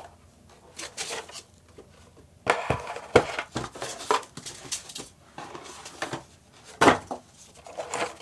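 Unboxing handling: cardboard packaging rustling and scraping as a keyboard is pulled out of its box, with a few sharp knocks, the loudest about three and seven seconds in.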